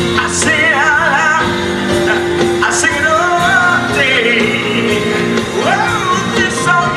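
Male soul singer holding a long melismatic run with heavy vibrato, gliding up and down in pitch, backed by a live band of upright bass, drums and piano.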